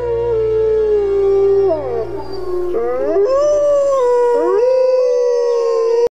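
Wolves howling: one long howl held at much the same pitch, dipping down and back up, with a second howl gliding up and down across it. The howling cuts off abruptly near the end.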